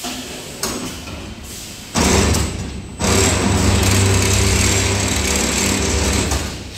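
GUTE SGW16D CNC stirrup bending machine straightening and feeding steel coil bar through its roller sets, running with a steady mechanical noise and a low hum. The noise starts about two seconds in, dips briefly, then holds steady and drops away near the end.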